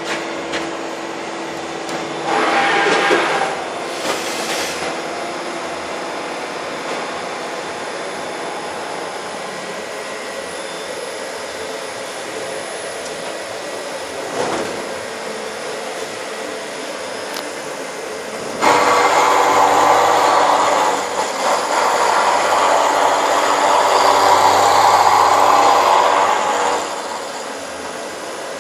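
Milling machine running with a steady hum. About two-thirds of the way through, a much louder rough cutting noise starts suddenly as the cutter works along the profile to improve its surface finish, easing off near the end.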